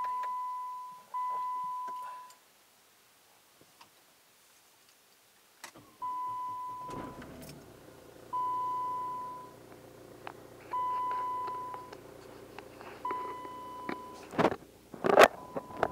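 A Jeep Liberty KK's dashboard warning chime sounds as a single-tone beep that fades over about a second. It comes twice at the start, then after a quiet gap about every two seconds. The owner puts this loud beeping down to a failed clock spring, which has set the ESP/BAS and airbag warnings. About seven seconds in the engine starts and idles under the chimes, and two loud knocks come near the end.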